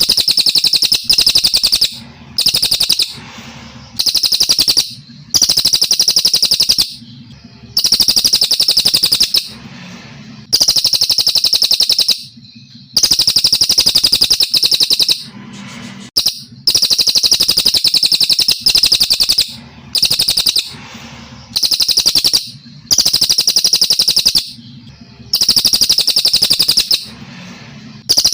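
A brown cililin singing in full voice: a loud, very rapid, high trill, about a second or so long, repeated over and over with brief pauses between the phrases.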